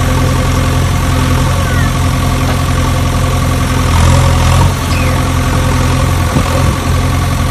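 Engine idling steadily with an even, low hum that holds at one pitch and level.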